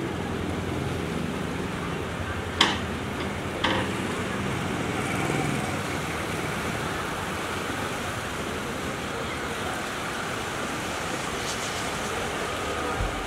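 Steady rushing outdoor noise of wind and distant city traffic, with two sharp clicks about two and a half and three and a half seconds in.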